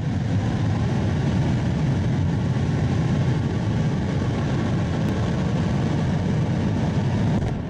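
Rocket engine firing on a horizontal test stand: a steady, deep rushing roar of exhaust noise. About seven and a half seconds in the noise falls away sharply as the engine fails in an explosion.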